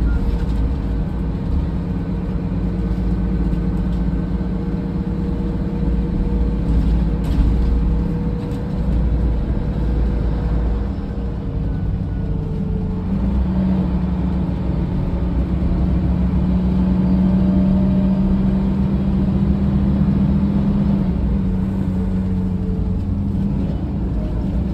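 Cabin noise inside a 2004 Mercedes-Benz O500LE bus under way: a steady low engine and road rumble. A humming drone swells from about halfway through and eases off again near the end.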